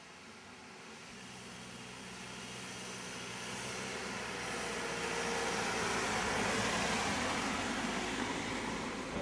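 An SUV approaching along a paved road and driving past, its tyre and engine noise swelling steadily to a peak about seven seconds in, then easing off slightly as it goes by.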